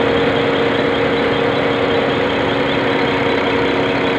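Common-rail diesel injector test bench running steadily, its motor-driven high-pressure pump humming at a constant pitch while the Bosch injector fires under test with a light, rapid ticking. The bench is measuring the injector's back leakage after its control valve seat was reground.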